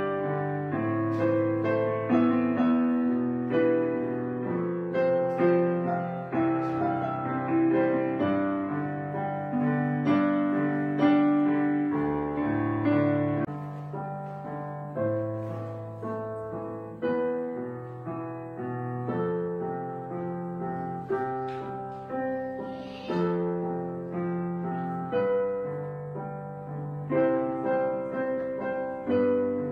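Background piano music: notes struck about once a second, each fading before the next.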